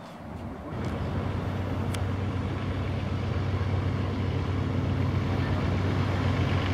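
A steady low engine drone with a strong low hum that builds up over the first few seconds, holds, and cuts off abruptly at the end.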